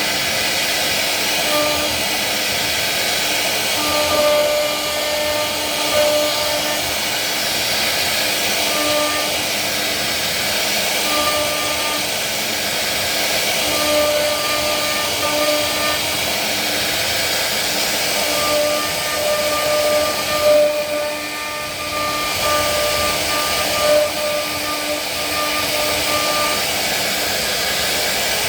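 CNC wood router running: a steady loud hiss with a thin high whine and its overtones that comes and goes every few seconds as the spindle cuts, with a brief dip about three-quarters of the way through.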